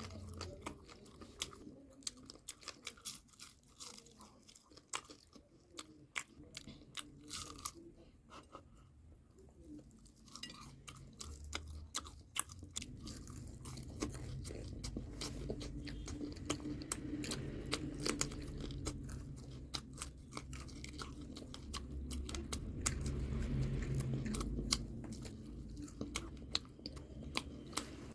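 A person chewing and crunching food close to the microphone, with many small crisp crunches and wet mouth clicks. Through the middle stretch the chewing turns into a denser, low, steady munching.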